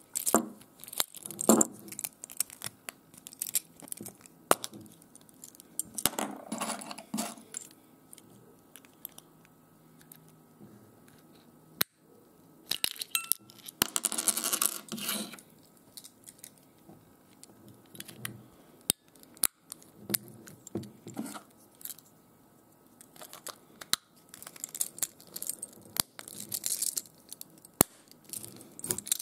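A Hyundai i10 flip key fob and its metal key rings being handled: scattered plastic clicks and metal clinks in short bursts, with quiet gaps between.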